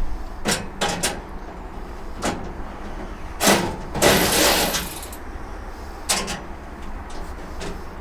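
Steel tool cart parts knocking and scraping as they are worked into place during assembly: several short metal clunks, with a longer scraping slide about three and a half to five seconds in.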